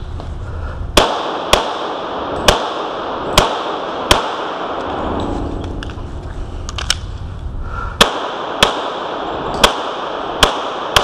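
Glock 35 pistol in .40 S&W firing: five fast shots, a pause of nearly four seconds, then another string of shots at a steady pace near the end. Each shot rings off the walls of an indoor range.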